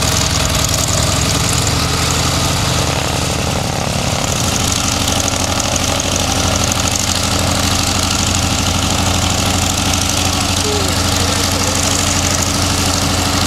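F4U Corsair's Pratt & Whitney R-2800 radial engine idling steadily on the ground, a low, even running note with no rise or fall.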